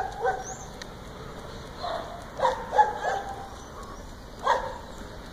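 A dog barking in short, separate barks: one at the start, a quick run of three about two and a half seconds in, and one more near the end.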